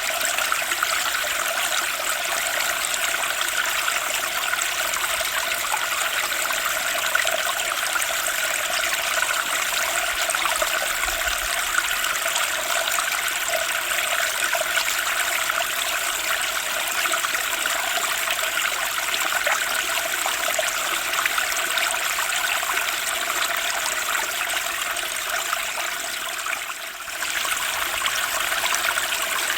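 Turbulent spring stream rushing and splashing steadily over its bed. The level dips briefly near the end, then picks up again.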